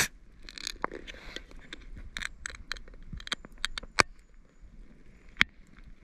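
Campfire crackling, with sharp wood pops at uneven intervals, the loudest about four seconds in and again near the end.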